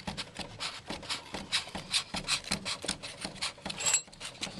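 Quick repeated scraping strokes of metal on metal as the furnace's gas supply line fitting is threaded back on and tightened.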